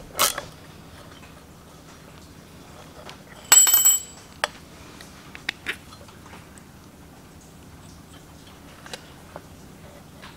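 Metal clinks and light taps of hand tools and steel parts as the grinder's pivot bracket is unbolted and dismantled, with one louder, ringing metallic clatter about three and a half seconds in and a few scattered small clicks after it.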